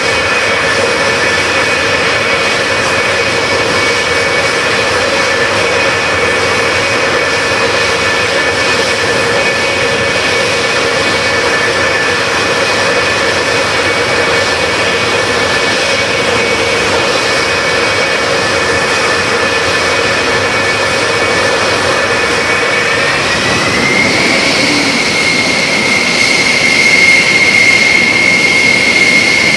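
F-4 Phantom II's twin J79 turbojets running at ground idle: a steady high-pitched jet whine over broad engine noise. About three-quarters of the way through, the whine rises slightly in pitch, and near the end it grows a little louder.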